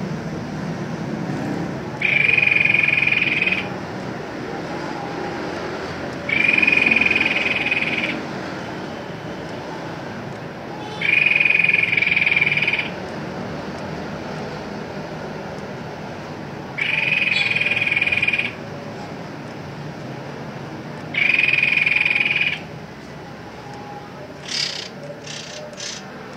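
Tepus babbler singing its reel song: a steady, high trill about a second and a half long, given five times a few seconds apart, over a constant low background hiss. A few short sharp chirps or clicks come near the end.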